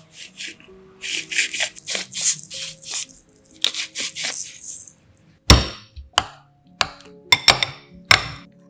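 Hand-twisted pepper mill grinding black peppercorns in a rapid run of crackly strokes for about four seconds. Then a metal spoon clinks sharply against a ceramic bowl several times, over soft background music.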